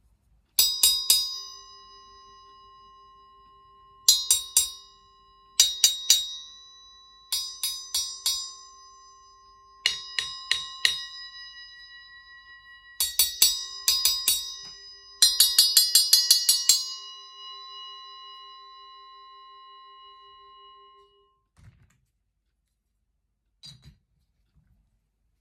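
6-inch Zildjian Zil-Bel sound-effects bell struck in quick clusters of three to five hits, each cluster leaving a bright ringing tone made of several fixed, unrelated pitches. A fast run of hits comes about 15 seconds in and rings on for several seconds before it is cut off, followed by two small knocks.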